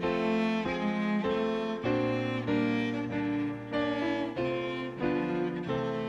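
Instrumental music: a bowed-string, violin-like melody moving from note to note over held chords and a low bass line.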